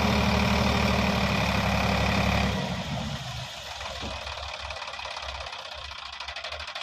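Heavy diesel engine running at high revs, then dropping sharply about two and a half seconds in to a quieter, pulsing idle.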